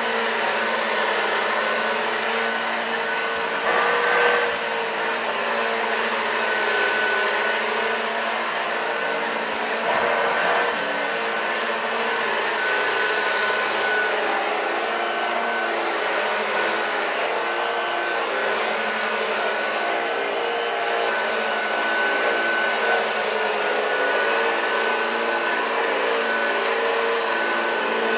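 1986 Hoover Junior U1206 upright vacuum cleaner running steadily: a motor drone with a steady high whine on top, briefly louder about four seconds in.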